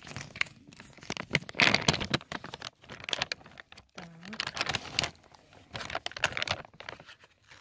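Plastic bag of dry dog kibble being opened and handled, its plastic crinkling and crackling in a run of irregular rustles. The loudest crinkling comes about two seconds in.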